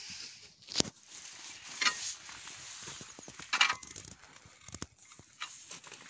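Rustling and crunching of straw bedding with a few sharp knocks, as livestock and a person shift about on it. The loudest crunch comes about three and a half seconds in.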